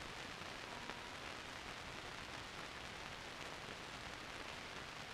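Steady hiss of an old film soundtrack between lines of narration, with no other distinct sound.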